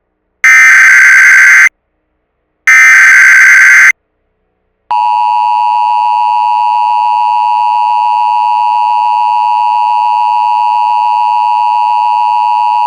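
Emergency Alert System tones: the last two of the three harsh, buzzing SAME header data bursts, each about a second long, then about five seconds in the steady, piercing two-tone EAS attention signal starts and holds.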